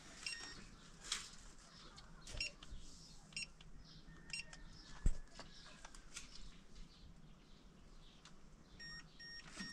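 Short electronic beeps of keys being pressed on a keypad: a couple near the start and three quick ones near the end. Scattered light clicks sound between them, and a single sharp knock comes about five seconds in.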